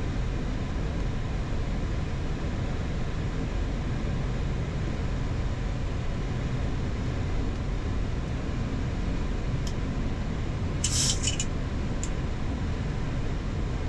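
Steady rushing cockpit noise of a Boeing 737-8 MAX on final approach: airflow and engines, heaviest in the low end. A short burst of sharp clicks about eleven seconds in.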